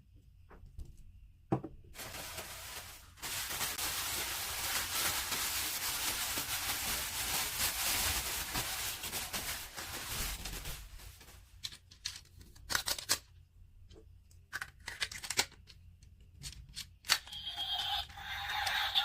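Toy packaging being torn open, a continuous ripping and crinkling for about eight seconds, followed by scattered clicks and taps of plastic being handled. Near the end a different, more tonal sound begins.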